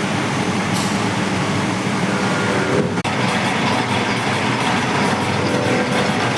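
Lathe running and cutting metal: a steady, dense mechanical noise with a low hum, broken by a brief dropout about three seconds in.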